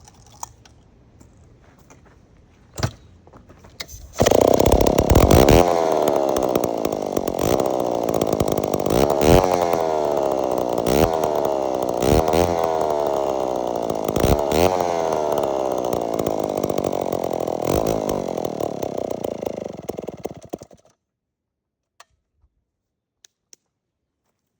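1953 McCulloch Model 47 two-stroke chainsaw engine firing up on its first start after a cylinder rebore, about four seconds in. It is revved again and again, its pitch sweeping up and falling back every second or two, then it cuts off suddenly near the end. It runs pretty good despite a carburettor that is dripping fuel.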